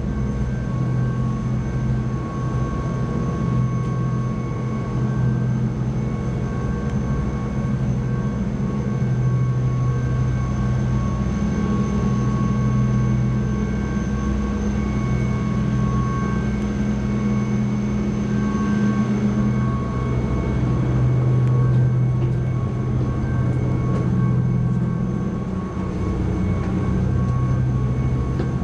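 Steady drone of the high-speed ferry Koshiki's engines and machinery, heard from inside the vessel: a strong low hum with a few faint, steady whining tones above it.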